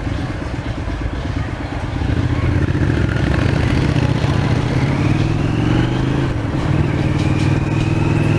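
Display aircraft flying past in formation, their engine noise swelling about two seconds in and staying loud, with a rising whine over the drone.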